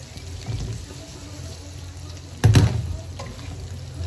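Carrot and capsicum sizzling in hot oil in a pan while being stir-fried, with one loud knock about two and a half seconds in.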